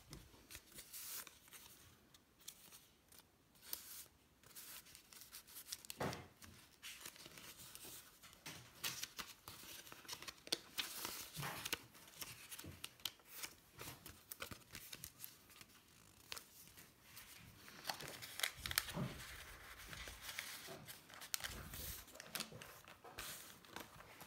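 Pages and paper inserts of a handmade junk journal being handled and flipped: irregular rustling, crinkling and scraping of paper, with a few low thuds in the last third.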